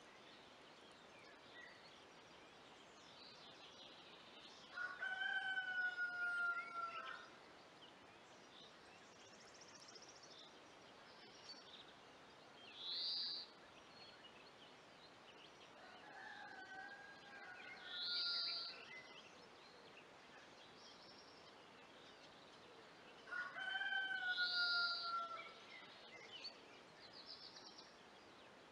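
A rooster crowing three times, each crow about two seconds long, with short high bird chirps in between, over faint outdoor background noise.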